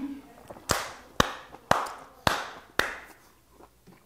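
Five sharp hand slaps, about two a second.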